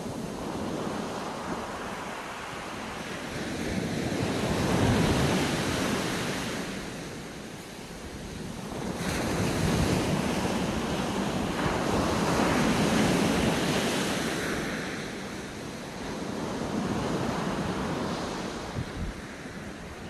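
Small waves breaking and washing up a sandy beach, the surf swelling and easing three times, loudest in the middle.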